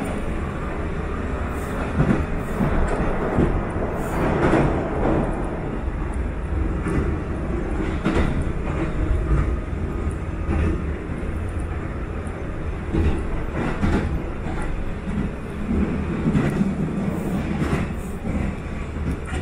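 Interior running noise of a Sanyo Electric Railway 5000 series train travelling at speed: a steady low rumble of wheels on the rails, with scattered clicks and knocks throughout.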